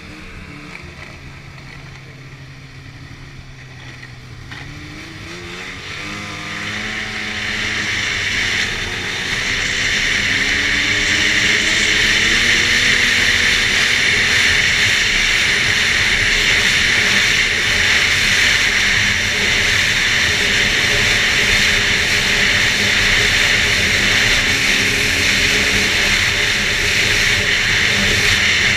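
2011 Arctic Cat F8 Sno Pro snowmobile's two-stroke twin engine pulling away: after a few seconds at low speed the engine pitch climbs and the sound grows much louder, then the sled holds a high speed with a loud, steady rush over the engine note.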